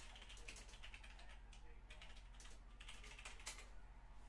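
Faint typing on a computer keyboard: quick key clicks in several short runs.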